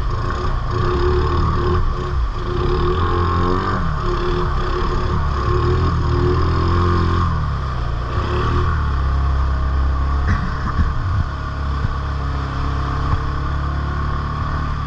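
ATV engine running under load, its revs rising and falling through the first half, then settling to a lower, steadier pitch, with a few brief knocks about two-thirds of the way in.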